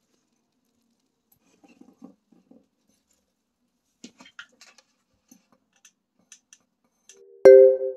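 Faint rustling and small clicks of hands pressing nylon bath loofah mesh onto the rim of a glass bowl. Near the end, loud music with bell-like struck notes starts abruptly.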